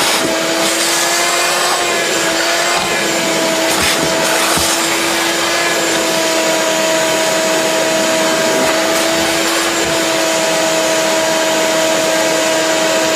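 Wet/dry shop vac running steadily, extracting water and cleaner from boat carpet and teak: a steady motor whine over a rush of suction air.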